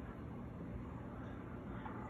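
Faint steady hum and hiss of room tone, with no distinct event.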